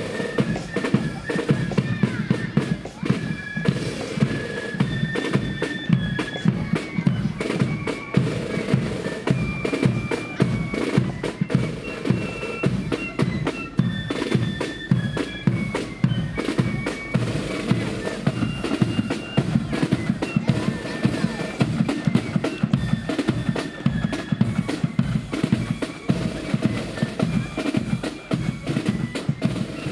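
Marching flute band playing: a tune on flutes over rapid snare drum rolls and heavy bass drum beats.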